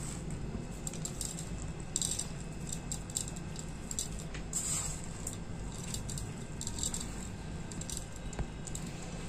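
Aloo bhujia being sprinkled over a plate of samosa chaat: several short rustling bursts with small clicks in between, over a steady low hum.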